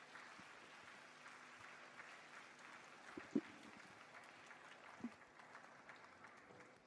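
Faint audience applause, an even patter of clapping that dies away near the end, with a soft knock about three seconds in and another about five seconds in.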